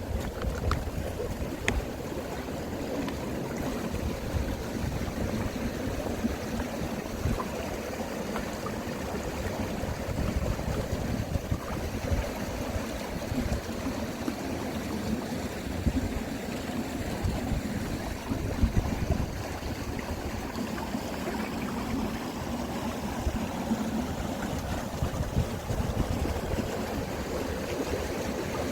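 Mountain stream flowing in a partly frozen creek bed: a steady rush of water, with wind rumbling on the microphone.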